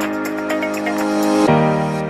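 Background music: gentle sustained chords with a chord change about one and a half seconds in.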